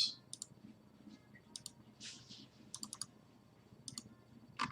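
Sparse, quiet clicking at a computer, a few single and paired clicks spread across several seconds, with a soft brush of noise about two seconds in.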